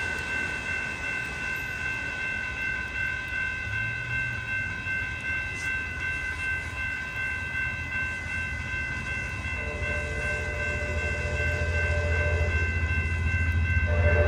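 A grade-crossing warning bell rings steadily as an approaching Amtrak passenger train's locomotive rumble grows louder. About ten seconds in, the train's horn sounds for about three seconds, and it starts again right at the end.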